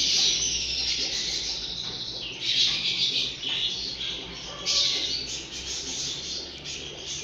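Small cage birds chirping and twittering in intermittent bursts of high-pitched song.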